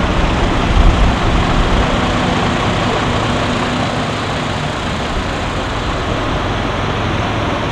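Steady outdoor background noise with a low rumble like road traffic, with a few louder low bumps in the first second.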